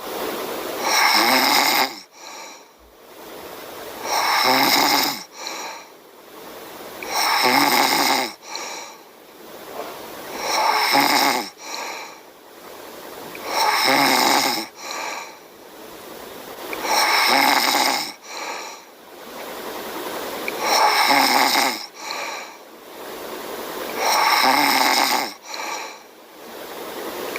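A person snoring in a steady rhythm, eight loud snores about three and a half seconds apart, with quieter breaths between them.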